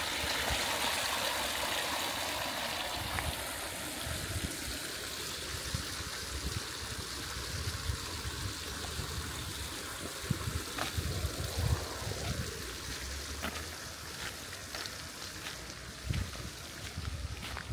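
Small garden fountain splashing and trickling into a stone pond, a steady rush of water that is loudest in the first few seconds and softer later, with irregular low thumps in the second half.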